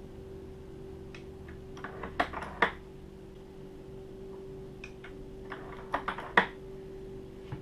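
Sharp clicks and clacks of brass .44 Magnum cases and a reloading press handled while the cases are charged with powder, in two short clusters, over a steady hum.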